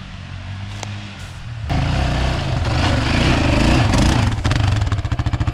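Off-road vehicle engine being ridden over freshly built whoops: it runs low, gets suddenly louder and rougher under throttle a couple of seconds in, then settles into a rapid, even pulsing near the end.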